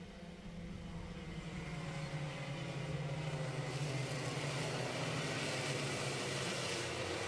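Racing kart engines of a pack running together. The sound grows louder over the first three seconds, then holds steady.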